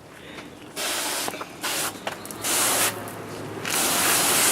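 Garden hose with a spray nozzle, water spraying in short bursts that start and stop several times, then running longer near the end.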